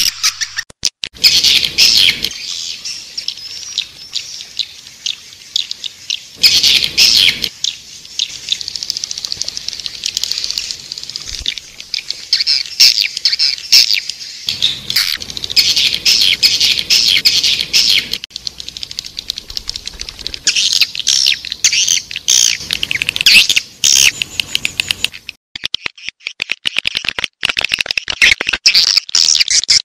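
Swiftlet lure call: dense, rapid, high-pitched twittering and chirping of swiftlets, the kind played to attract them to a nesting house. It breaks briefly near the end, then resumes as quick repeated clicks and chirps.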